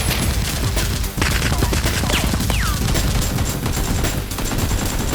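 Rapid, continuous gunfire, dubbed in as video-game-style sound effects for a Nerf blaster fight, with shots in quick succession. Two short falling whistles come a little after two seconds in.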